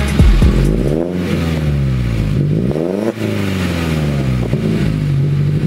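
Lotus Elise S3's Toyota 1.6-litre four-cylinder engine, just started, revved twice through its sports exhaust: the pitch rises and falls each time, with a sharp drop about three seconds in, then settles back to a steady idle near the end.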